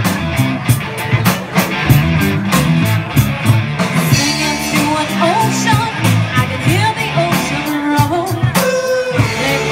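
Live rock band playing: electric guitars, bass and drums keep a steady beat, and a woman's lead vocal comes in about four seconds in.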